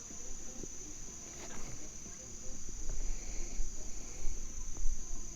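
Steady, high-pitched drone of an insect chorus in summer riverside woods. Under it, a low irregular rumble with a few light knocks grows louder about halfway through.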